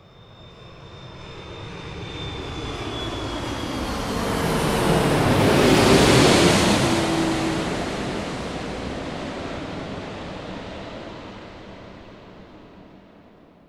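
An airplane flying over: its engine noise swells for about six seconds to a loud peak as it passes, then fades away. A high whine on the approach falls in pitch, and a lower engine tone drops in pitch just after the loudest point as the aircraft passes and recedes.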